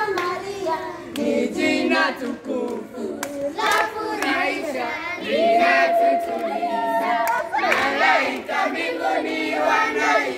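A group of children singing a song together, with hand claps among the voices.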